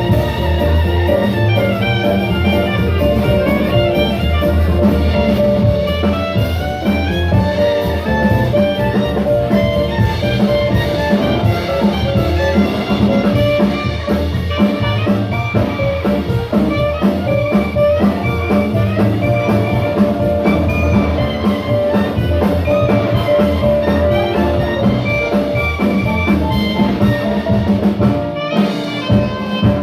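Jazz band playing, with horns over drums and bass. The bass and drums drop out briefly near the end, then come back.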